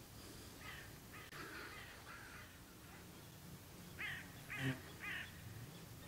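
A crow cawing: a few faint harsh calls in the first half, then three louder caws in quick succession near the end. A low thump comes with the middle caw.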